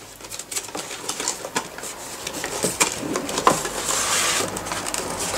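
Cardboard packaging handled: the top flap of a mouse box opened and a clear plastic blister tray slid out past a paper insert, giving scattered clicks and taps with a denser rustling and scraping about four seconds in.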